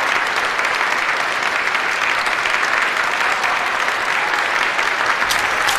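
Audience applauding steadily, with a few sharp clicks near the end.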